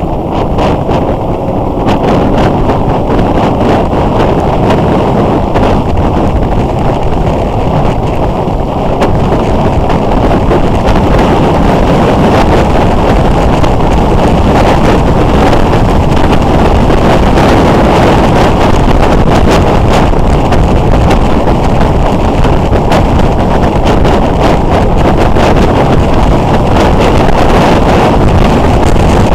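Wind rushing over the microphone of a motorcycle-mounted camera at riding speed, with the motorcycle's running beneath it. The rush grows louder about nine seconds in.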